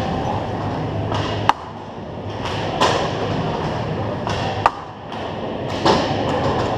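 Hockey play on a rink: a steady scraping rumble of skates, broken by sharp stick-and-puck clacks, the two loudest about a second and a half in and just under five seconds in.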